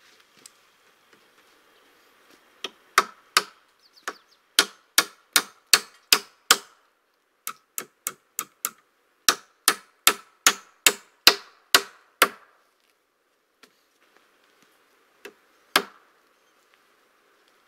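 Repeated strikes of a hand tool on timber during log cabin building: two quick runs of sharp, ringing knocks at about two to three blows a second, with a short pause between them and two last blows near the end.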